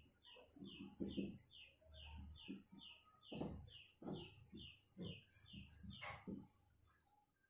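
A bird chirping in a quick, even series, a bit over two chirps a second, stopping about six seconds in. Under it are faint strokes of a marker writing on a whiteboard.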